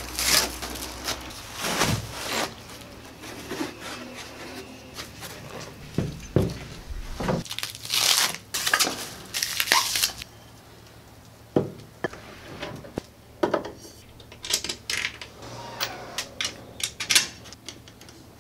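Creality Ender-5 S1 3D printer parts being unpacked by hand: foam packing and metal frame pieces lifted out and set down on a table, with scattered knocks and clicks. Several rustling, tearing bursts of packaging come in a cluster around the middle.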